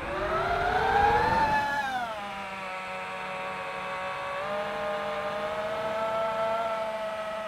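Brushless motors of an FPV quadcopter whining. The pitch climbs with throttle over the first second and a half, drops back about two seconds in, then holds nearly steady with a slight step up midway.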